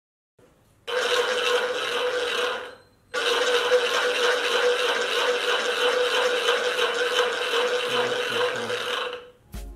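Homemade noise maker (a cut plastic bottle spun on a wooden skewer, with a bottle cap and a bolt) whirling with a loud, fast rattling buzz. It starts about a second in, breaks off briefly near three seconds, then runs on until just before the end, where music begins.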